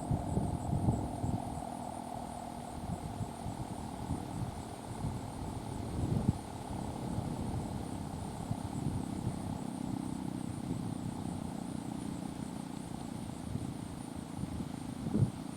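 Federal Signal 2T22B dual-tone rotating siren at the tail of its wind-down, a faint low drone whose upper tone fades in the first couple of seconds, under wind buffeting the microphone.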